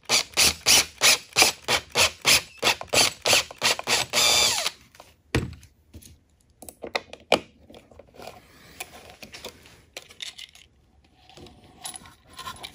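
A step bit in a cordless drill cutting through the wall of a blue plastic electrical box, chattering about three times a second, then spinning steadily for a moment before it stops just before 5 s. Quieter clicks and handling noise follow as a cable connector is pushed into the new hole.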